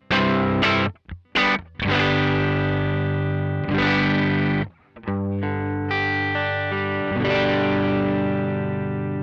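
Electric guitar (a Suhr Classic S) played through a Joyo American Sound amp-simulator pedal with every knob at noon, recorded direct into an audio interface, giving an overdriven tone. Several short chords are choked off in quick succession, then longer strummed chords follow, and the last is left ringing and slowly fading.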